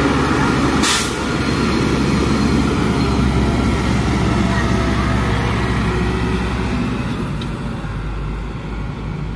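Dump truck's diesel engine running under load as it drives through mud, easing off somewhat near the end as it pulls away. A brief sharp knock about a second in.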